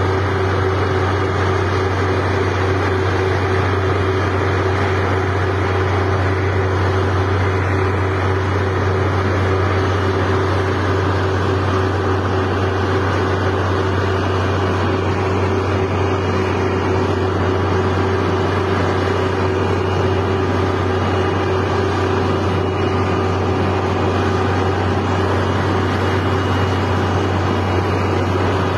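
Snow-clearing vehicle engine running in a steady, unbroken drone, with a low hum and a fixed higher tone.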